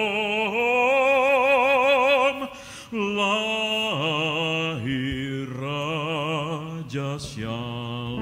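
A man singing a hymn solo in Indonesian in a trained, operatic style with wide vibrato. He pauses for breath a little over two seconds in, then sings on.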